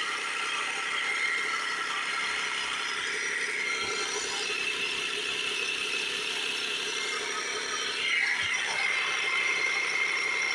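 Small 12-volt portable air compressor running steadily, pressurising a jerry can to push fuel through a hose into a truck's tank; its tone shifts slightly about eight seconds in.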